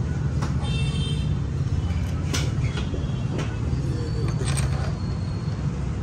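Steady low rumble of vehicle noise, with a few sharp clicks and taps of metal parts as the motorcycle's front brake caliper and pads are handled and fitted.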